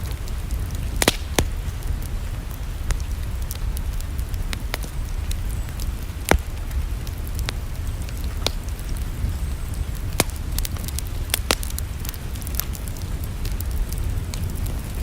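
Wood fire crackling in a fireplace: irregular sharp pops and snaps, a few louder ones about a second in and about six seconds in, over a steady low rumble.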